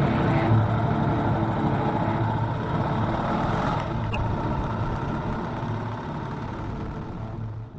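Moto Guzzi Falcone's single-cylinder engine running as the motorcycle is ridden at low speed, with road noise. The sound gradually fades out and cuts off near the end.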